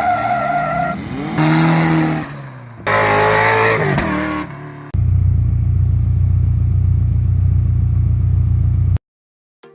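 Car engines revving hard in several short cuts, the pitch climbing and falling, then a loud steady low engine rumble for about four seconds that stops abruptly.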